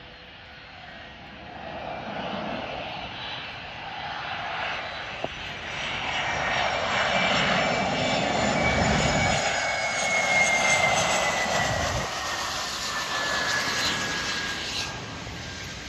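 Boeing 717's twin Rolls-Royce BR715 turbofan engines on final approach, growing louder as the jet comes in low and passes. A high whine falls steadily in pitch over the second half as the aircraft goes by.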